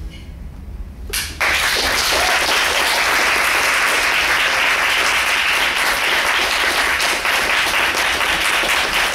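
Audience applause, breaking out suddenly about a second in and continuing steadily and loudly.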